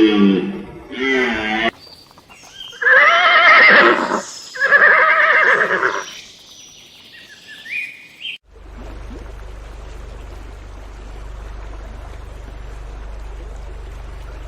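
A farm animal calling: a short wavering cry, then two loud quavering cries about three and five seconds in. After that comes a steady low rumble with a faint hiss, lasting the last six seconds.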